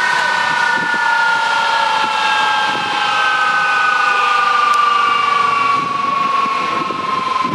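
F-4 Phantom II's J79 turbojet engines whining, the pitch gliding slowly and steadily downward as they spool down.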